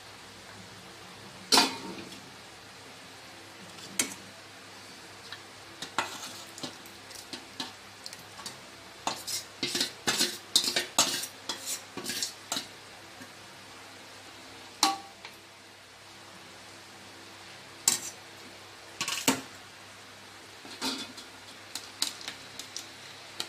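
Metal spoon, ladle and bowl clinking and scraping against a metal cooking pot as rice and chicken gravy are layered in. The knocks come singly at first, then in a rapid cluster around the middle, over a faint steady hiss.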